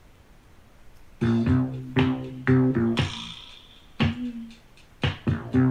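Music from a 7-inch 45 rpm single playing on a Bang & Olufsen Beogram 4000 turntable. It starts about a second in, after a quiet lead-in, with sharp plucked notes in a steady rhythm.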